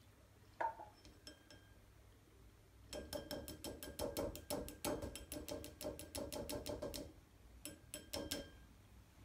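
A saucepan knocked and shaken against a plastic strainer over a bowl as the last of the coffee-and-rice liquid is drained: a quick run of light, ringing clinks, about five a second for some four seconds, with a single click earlier and a few more knocks near the end as the pan is set down.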